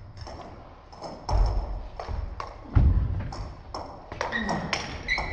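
Table tennis balls clicking off paddles and tables in rallies, quick irregular taps. Two heavy low thumps break in about one and a half and three seconds in, the second the loudest sound.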